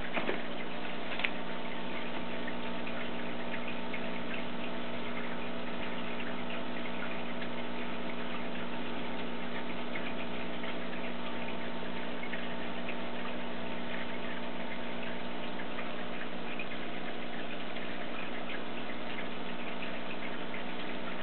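Aquarium pump humming steadily under a fine, continuous crackle of bubbles and water, with a light click or two in the first second or so.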